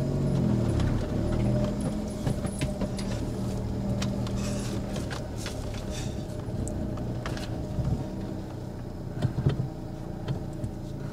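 Small Daewoo Matiz hatchback's engine running at low speed as the car rolls slowly across a grassy, reed-strewn track, with a steady hum that eases off in the second half. Light crackles and clicks come from the tyres going over dry cut reed stalks.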